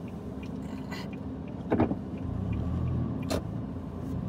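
A Toyota's engine and tyres, heard from inside the cabin while it drives slowly; the low engine hum grows louder about halfway through. Two sharp clicks about a second and a half apart.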